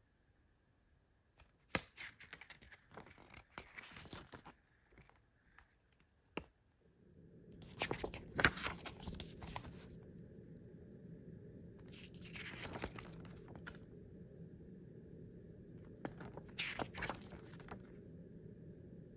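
Pages of a CD lyric booklet being handled and turned: bunches of paper rustling and crinkling with a few sharp clicks, each lasting a second or two. A steady low background hum comes in about seven seconds in.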